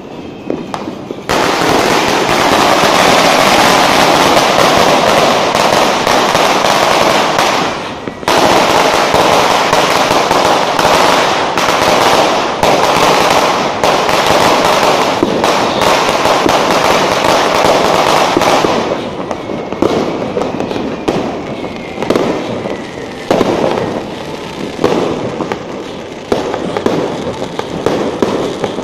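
A judas belt, a long string of firecrackers, going off in a loud, continuous rapid crackle of bangs for about seventeen seconds, with a brief break about eight seconds in. After it ends come scattered single bangs from other firecrackers and aerial fireworks.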